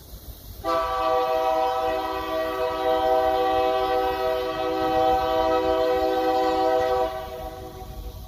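Union Pacific freight locomotive's multi-chime air horn sounding one long blast of about six seconds, several notes together in a chord, as the train approaches. It starts suddenly and cuts off cleanly, over a low rumble from the train.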